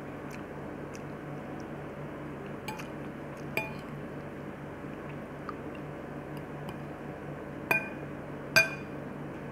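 Metal fork clinking against a ceramic plate and bowl while eating. There are a couple of light clinks, then two louder ringing ones near the end, over a steady low hum.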